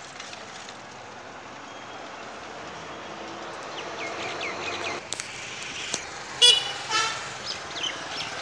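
A vehicle horn toots once, short and loud, about six and a half seconds in, over a steady hum of street traffic.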